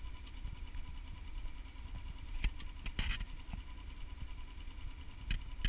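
A small boat motor running steadily, with a low rumble and a thin steady whine. Short rattles come at about two and a half, three and five and a half seconds in.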